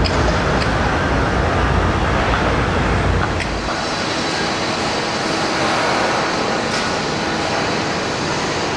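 Docklands Light Railway train running past, a loud steady rumble and rush with a faint high whine. The deep rumble drops away about three and a half seconds in.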